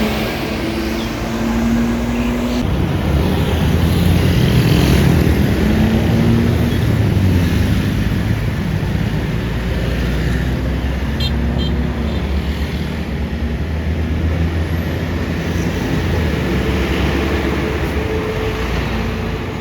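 A large diesel vehicle, a bus, passing close with a heavy low engine rumble that comes in strongly about three seconds in, over road traffic noise. A held horn tone is heard in the first couple of seconds.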